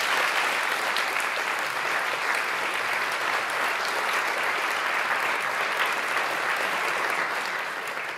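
Audience applauding: the steady, dense clapping of a full auditorium at the end of a talk, beginning to fade near the end.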